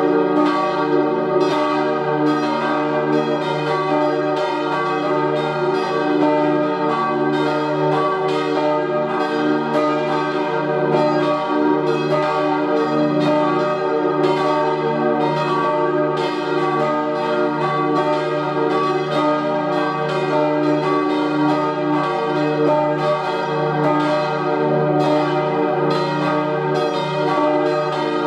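The four swinging church bells of 1888 by Rüetschi of Aarau, tuned to an E-flat major chord (E-flat, G, B-flat and the upper E-flat), ringing together in a full peal, with strikes overlapping continuously over a deep, lasting hum.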